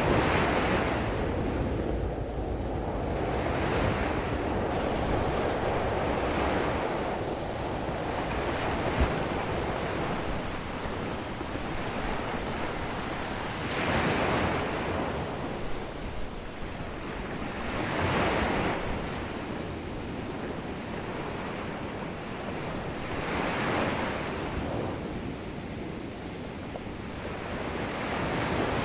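Ocean surf: waves breaking on a beach every few seconds over a steady wash of water.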